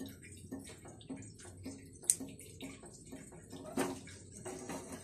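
Soybean oil pouring in a thin stream into a dry nonstick pot, a faint trickle with scattered small crackles and a couple of sharper clicks about two and four seconds in.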